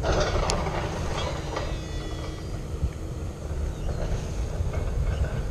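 Wind buffeting the microphone with a steady low rumble, while a Shimano Metanium DC baitcasting reel is wound in, its retrieve whirring faintly.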